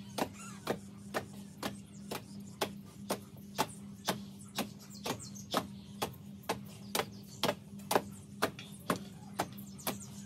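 Background music: a steady ticking beat of about two clicks a second over a low held drone.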